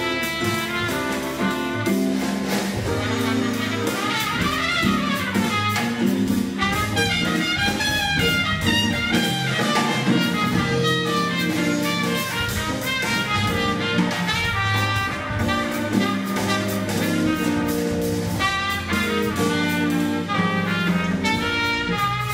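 Live jazz band playing: trumpet out front over organ, drum kit and electric-acoustic guitar.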